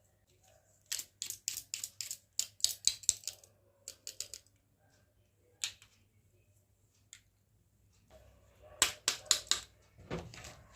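Small hard plastic toy kitchen pieces clicking and tapping as they are handled. The clicks come in a quick run about a second in, then a few single clicks, and another quick run near the end.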